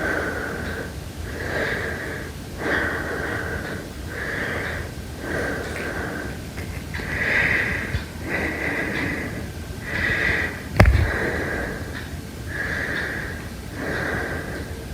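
Heavy breathing going in and out in a regular rhythm, a breath about every second and a half, each with a hissing, airy rush. A single sharp knock about two-thirds of the way through.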